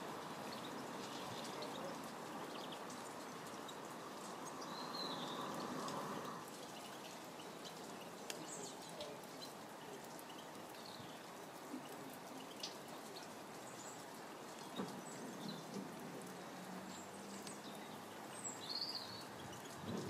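Steady hiss of rain with scattered drips. The hiss drops at about six seconds in. A few short, high bird chirps come through, the last near the end.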